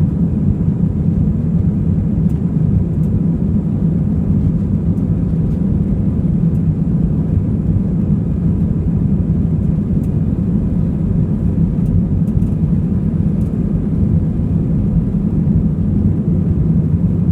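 Jet airliner's engines: a steady, loud low rumble that holds an even pitch throughout.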